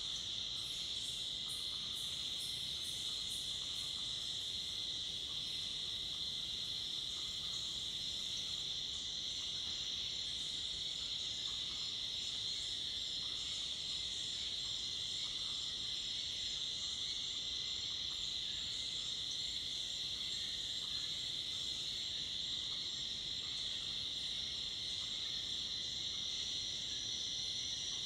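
Dusk insect chorus in an East African montane rainforest: a steady, unbroken high-pitched trill of crickets and cicadas. A fainter, faster-pulsing insect call sits above it in the first few seconds.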